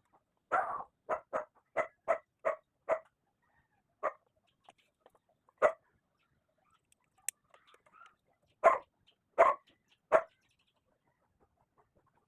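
A dog barking: a quick run of about seven barks, then scattered single barks and a last group of three.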